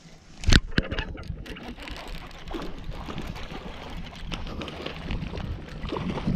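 Splashing and clattering of a hooked bass being fought and landed, with a sharp knock about half a second in.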